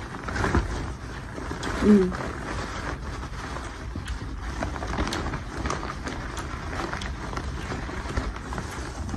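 Clear plastic seafood-boil bag crinkling and crackling as hands rummage through sauce-coated seafood inside it, with one short vocal sound about two seconds in.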